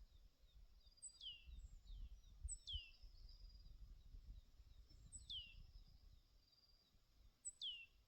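Faint wild birdsong: four high, clear whistles, each sliding steeply down in pitch, spaced about two seconds apart, over a soft background of short high chirps from other birds. A low rumble runs underneath.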